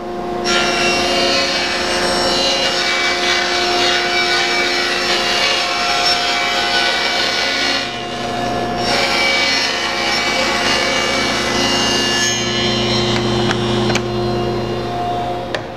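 SawStop table saw running while a large sheet of half-inch Baltic birch plywood is fed through the blade: a steady motor hum under the hiss of the blade cutting. The cutting noise dips briefly about eight seconds in and dies away near the end.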